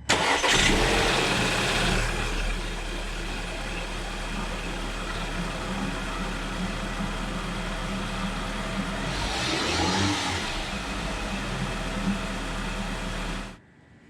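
Car engine starting on the first try after a PCV valve replacement, loud for about two seconds as it catches, then settling into a steady idle. There is a brief swell about ten seconds in, and the sound cuts off suddenly near the end.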